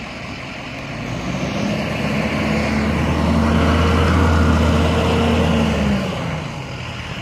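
An ambulance drives close past with its siren off. Its engine drone grows louder from about a second in, is loudest around the middle, and fades away after about six seconds.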